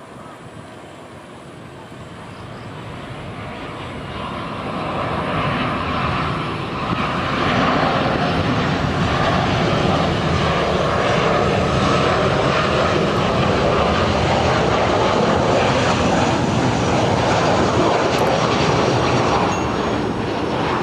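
Boeing 737 airliner's CFM56 turbofan engines on landing approach. The jet noise grows louder over the first several seconds as the aircraft nears, then holds loud and steady with a faint whine running through it.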